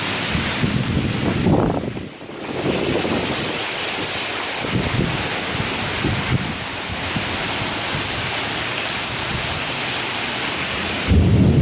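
Heavy downpour: a steady hiss of hard rain, with wind buffeting the microphone. A low rumble of thunder starts near the end.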